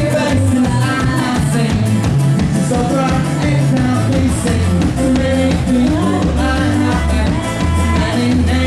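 A rock band playing live, dance-style, with drum kit, a moving bass line, and sung vocals at times.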